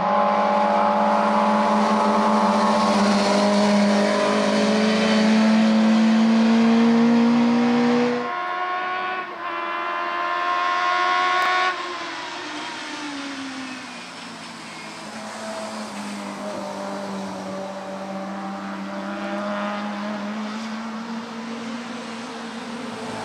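1300 cc four-cylinder touring-car engines racing hard on a wet track, the first held at high revs and climbing slowly, with a hiss of spray over it. The sound cuts off abruptly about 8 seconds in and again near 12 seconds. After that, quieter engines of cars further off, dropping in pitch and then building slowly as they come closer.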